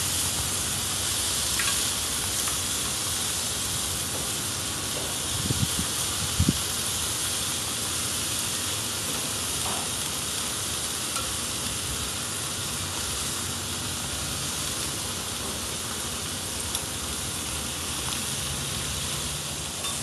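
Skinless chicken thighs sizzling on a hot grill, a steady hiss as rendered fat drips off them, with a couple of brief knocks about six seconds in.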